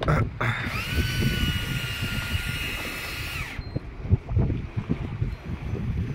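Big-game fishing reel's drag screaming for about three seconds, a steady high whine over a hiss that starts about half a second in and cuts off suddenly: a large fish running and pulling line off the reel against the drag. Wind rumbles on the microphone throughout.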